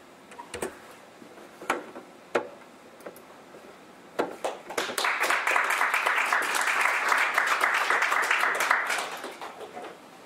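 Audience applauding for about five seconds: a few scattered claps build quickly into steady applause that fades out near the end. A few sharp clicks come before it.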